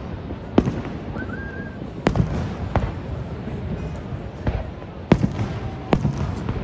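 Aerial fireworks shells bursting overhead, about six sharp bangs at uneven intervals.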